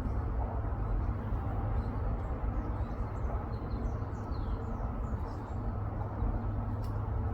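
Faint, short high-pitched chirps from a small bird, scattered through a steady low rumble.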